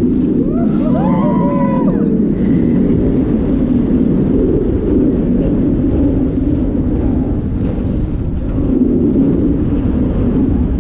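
On-ride sound of a roller coaster: the steady rumble of the train on its track mixed with wind rushing past the microphone. A short wavering, gliding pitched sound is heard about a second in.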